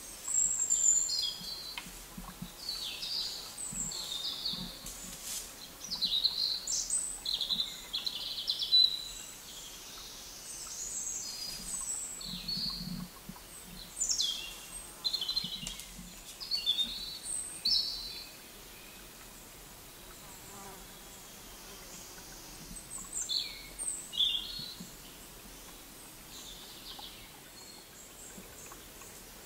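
Songbirds singing in woodland, a string of short high chirping and warbling phrases, busiest in the first two-thirds, then a few more calls about three-quarters of the way through.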